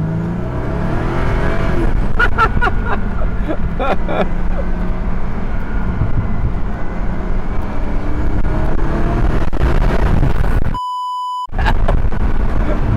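Morgan Plus Six's BMW 3.0-litre turbocharged inline-six pulling hard under full throttle, heard from the open cockpit with wind rush, getting louder over the first couple of seconds. Near the end a short censor bleep replaces all other sound.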